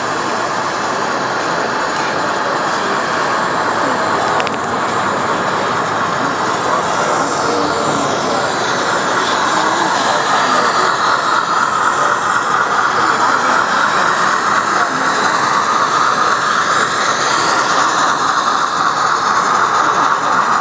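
Running sounds from a sound-equipped HO-scale model steam locomotive's speaker, over the steady noise of a busy exhibition hall; the train sound grows louder about halfway through.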